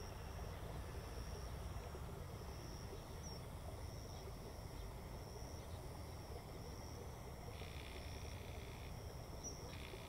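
Faint outdoor background: a steady low rumble with a thin, high chirp repeating about once a second.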